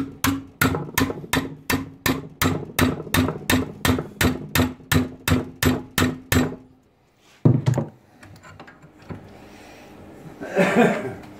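Hammer blows on a bent brass strip clamped in a steel bench vise, straightening the bend that sawing put into it. The blows come about three a second with a ringing tone under them, stop after about six and a half seconds, and one more blow follows about a second later.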